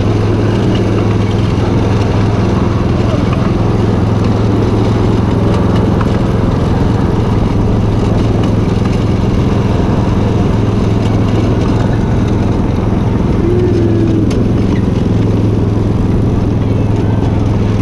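Miniature train running with a steady, even engine drone and a low hum, heard from one of its riding cars.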